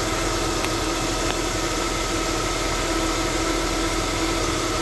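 Porsche 986 Boxster's flat-six engine idling steadily with the engine bay open, its accessory belt and pulleys turning, with no unusual noises: the engine runs clean.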